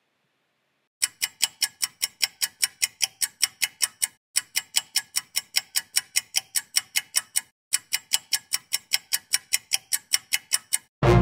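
Clock-like ticking sound effect marking a countdown, quick and even at about four ticks a second. It starts about a second in and breaks off briefly twice. Music comes in right at the end.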